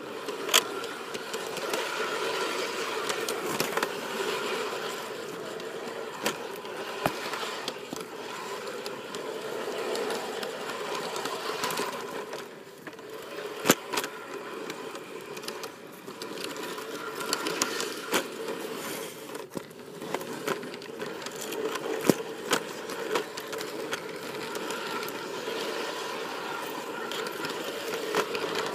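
G scale model locomotive running along garden railway track: a steady motor and gear hum with frequent clicks and rattles as it rolls over the track, one sharper click about fourteen seconds in.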